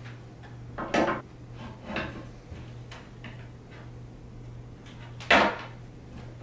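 Plastic hand spring clamps clacking as they are snapped onto a rope-wrapped plastic ring: a few separate sharp clacks, the loudest near the end.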